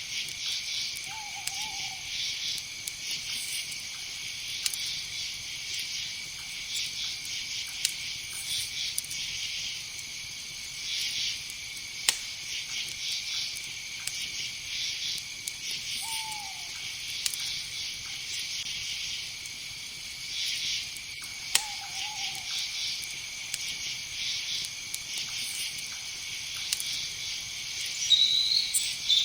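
Night insect chorus: a steady, high, pulsing chirring. A few short falling calls sound now and then, and a louder high call comes near the end.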